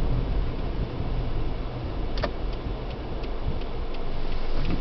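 Car driving slowly, heard from inside the cabin: a steady low engine and road rumble. From about halfway through, a run of light, evenly spaced ticks, about three a second.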